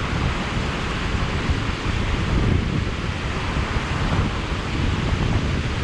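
Steady rushing noise of water pouring from a canal overflow, mixed with wind buffeting the microphone.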